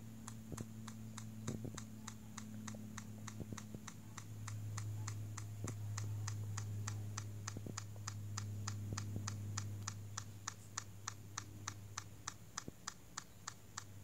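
LG Phoenix 3 smartphone camera firing its shutter sound over and over in burst (continuous-shot) mode while the shutter button is held: a fast, even run of faint clicks at about three a second.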